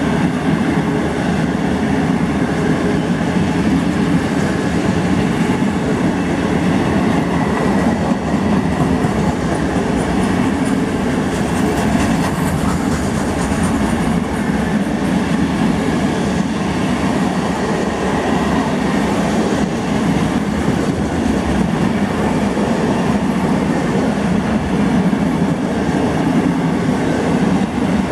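Container wagons of a long freight train passing through a station without stopping: a loud, steady, unbroken noise of steel wheels rolling on the rails.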